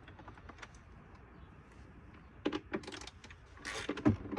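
Scattered light clicks and knocks, with a cluster of them a little over halfway and a brief rustle near the end, as things are handled in the truck. No engine cranking is heard: the truck is not turning over.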